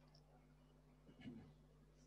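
Near silence: room tone with a faint steady hum and one brief faint sound about a second in.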